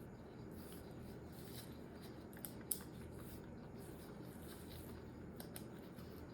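Faint handling noise of small hard parts being moved and rubbed, with a few small clicks and one sharper click a little over two and a half seconds in.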